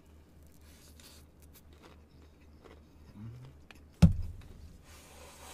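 Quiet chewing of fried chicken with small mouth clicks, then a single loud, low thump about four seconds in.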